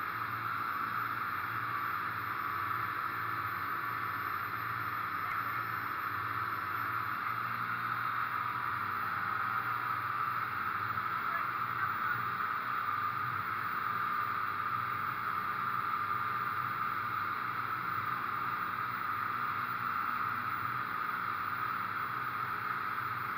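Sportfishing boat running fast: a steady engine drone under the rush of wind and churning wake water.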